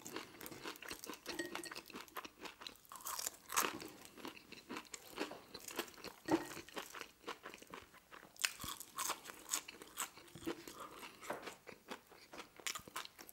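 Close-up chewing of french fries: irregular crunches and small clicks from the mouth, quiet and scattered throughout.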